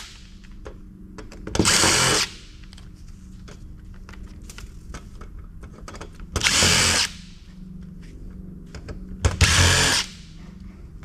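Cordless drill-driver spinning out small screws from a circuit board's aluminum mounting plate: three short runs of the motor, each well under a second, about 2, 6.5 and 9.5 seconds in, with faint handling clinks between them.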